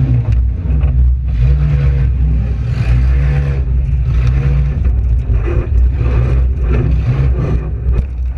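Front-wheel-drive demolition derby car's engine revving up and down again and again, with a few sharp knocks.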